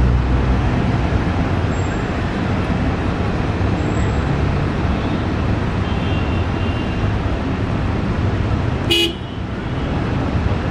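Steady city road traffic mixed with a CRH1A electric train passing on the elevated line, and one short horn toot about nine seconds in.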